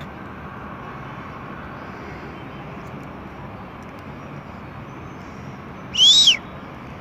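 Steady outdoor background noise. Near the end comes one loud, short whistle that rises and then falls in pitch.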